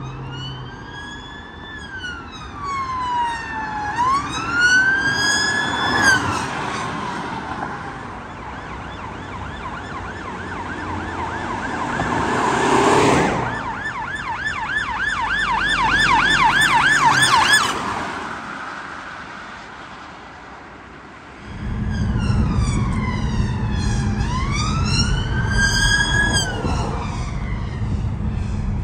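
UK police vehicle sirens on an emergency run. A slow rising-and-falling wail comes first, then a fast yelp that peaks as a police car passes about 13 seconds in. Near the end a loud low rumble sets in under another slow wail.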